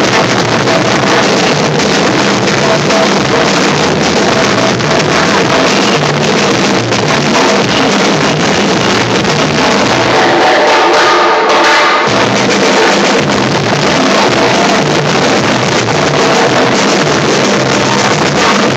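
Loud live music from a marching drum band of large silver bass drums and smaller drums, pounding continuously. The deep drums stop for about two seconds past the middle, then come back in.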